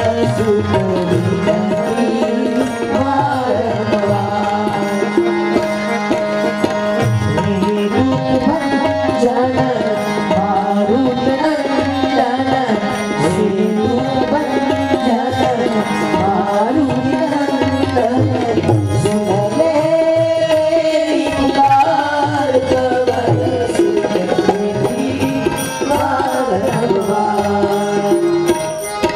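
Live Indian devotional music: tabla drumming a steady rhythm under a harmonium and electronic keyboard melody.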